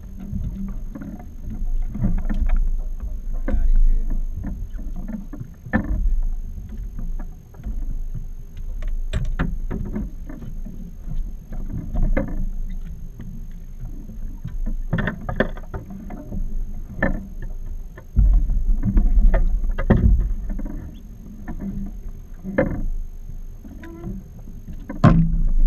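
Irregular knocks and clunks of gear and feet on a small fiberglass boat's deck and hull as it drifts, over a low wind rumble on the microphone that swells about two-thirds of the way through.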